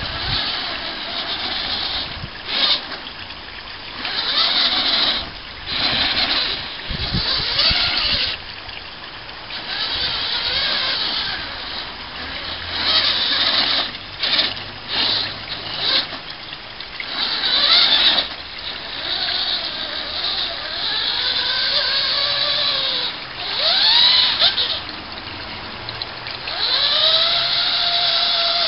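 Home-built 6x6 RC truck on Clod Buster axles, its brushed 55-turn crawler motors and axle gears whining in repeated bursts as the throttle is opened and let off. The whine's pitch rises and falls with each burst, with several clear rising whines in the second half.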